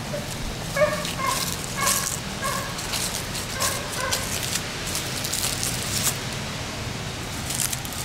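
Footsteps crunching through dry leaves and grass, with short, high yips from an animal: a run of four about a second in and two more near the middle.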